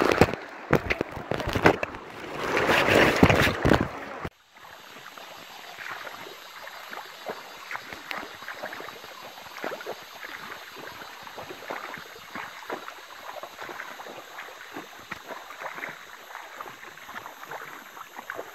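River water rushing and sloshing through the gaps of a bamboo raft, with sharp knocks from the poles, for about four seconds. It then stops abruptly and gives way to quieter, gentle lapping water with many small irregular clicks.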